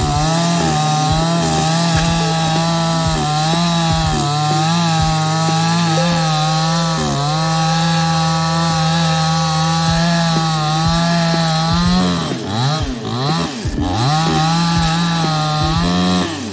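Chainsaw running at high speed while cutting wood, its pitch wavering under load. It dips briefly partway through, then sags and surges up and down for a couple of seconds before running steady again, and cuts off abruptly near the end.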